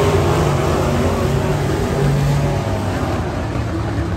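Engines of several Pro-Truck dirt-track race trucks running at racing speed around the oval, their engine tones shifting in pitch as the trucks go by.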